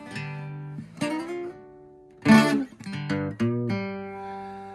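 Background music: a few separate strummed chords on a plucked string instrument, each left to ring. The strongest strum comes about two seconds in.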